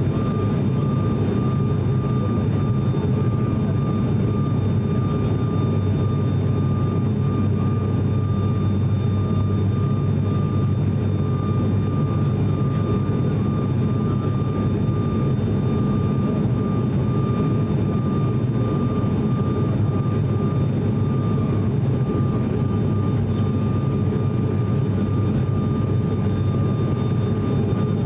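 Cabin noise of an ATR42-600's twin turboprop engines during the climb after takeoff: a steady low drone with a constant high whine over it.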